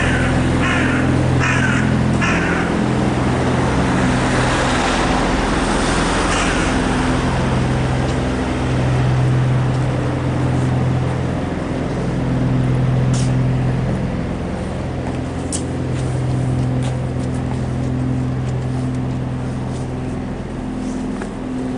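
Large diesel lorry's engine running at idle, a steady low hum that swells and eases every couple of seconds.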